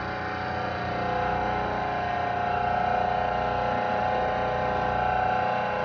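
Motor-driven hydraulic pump of a flexural and compression testing machine running steadily as it loads a beam sample, a constant mechanical hum with a whine.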